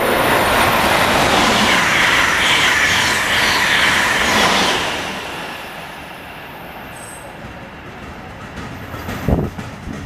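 Amtrak Acela Express high-speed train passing through at speed: a loud rush of wheel and air noise that dies away about five seconds in as the train goes by. A few low thumps come near the end.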